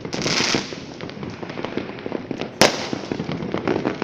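Fireworks and firecrackers going off: a dense crackle of many small pops, a hissing rush just after the start, and one loud sharp bang about two and a half seconds in.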